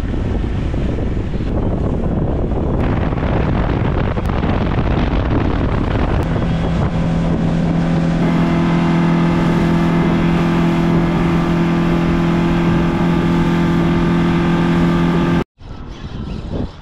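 Yamaha outboard motor running a boat at speed, with wind rushing over the microphone. From about six seconds in a steady engine drone stands out, then the sound cuts off abruptly near the end, leaving only quieter wind.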